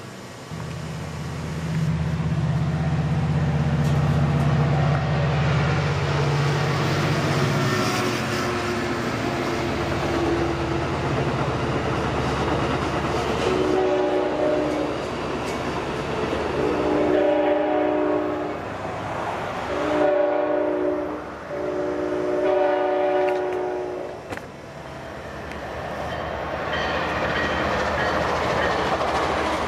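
Diesel-hauled passenger trains passing: a deep engine drone for the first several seconds, then a multi-tone air horn sounding four blasts (long, long, short, long, the grade-crossing pattern), and near the end the rumble of an approaching train building up.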